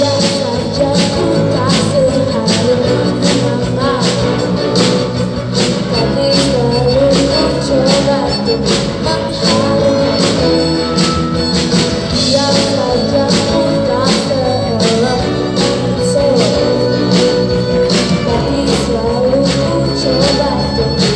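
Loud upbeat music with a singing voice over a steady percussive beat, about two strokes a second.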